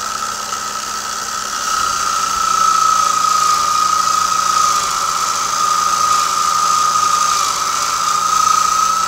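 Electric drill motor clamped in a bench vise spinning a fine wire carding wheel with a steady high whine over a low hum, as a steel rifle barreled action is worked back and forth against the wheel. It is carding off the loose rust left after steaming, a stage of rust bluing. The sound gets a little louder about two seconds in and holds steady.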